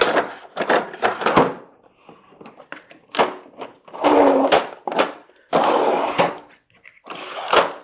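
Craftsman 230-piece mechanics tool set being handled: a series of clatters, knocks and sliding sounds from tools and the plastic case, in several separate bursts about a second long.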